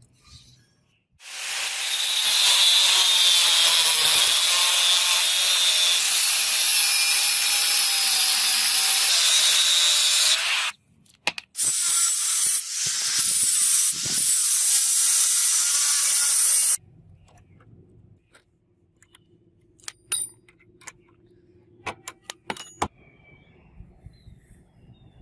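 Power tool grinding or cutting metal, running in two long stretches of about nine and five seconds with a short break between, its pitch wavering under load. A few light clicks and taps follow near the end.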